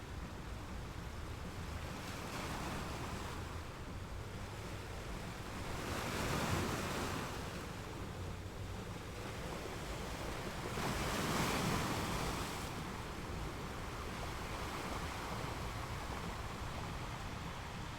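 Ocean surf: waves washing in as a steady rush, with two louder surges, about six and eleven seconds in.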